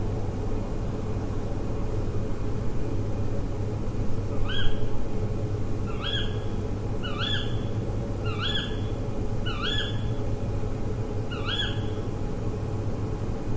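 A bird calls a short, sharply rising note over and over, about once a second, starting about four seconds in, over a steady low rumble.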